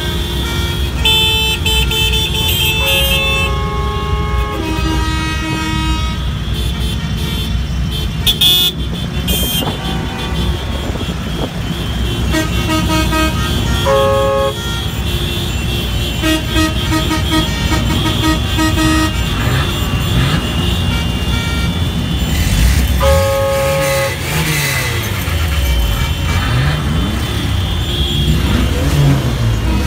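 Vehicle horns of a column of off-road vehicles honking over and over, in short toots and longer blasts of differing pitches, over the steady running of engines. In the last third, engine pitches rise and fall as vehicles rev.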